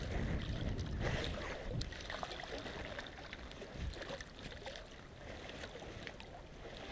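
Small waves lapping and sloshing against shoreline rocks, with wind on the microphone and scattered light clicks.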